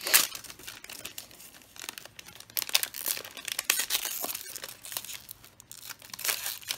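Foil wrapper of a Pokémon booster pack being torn open and crinkled by hand. It makes irregular crackles, with a sharp burst of tearing right at the start.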